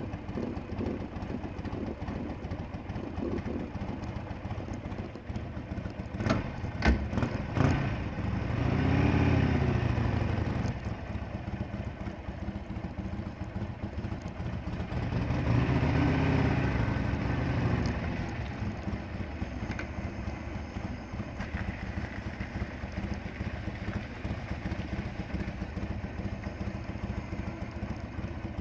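Harley-Davidson Sportster Roadster's air-cooled V-twin running at a steady low idle, with a few sharp clacks about six to eight seconds in. The engine then revs up and falls back twice as the bike pulls away, and runs on steadily at low speed.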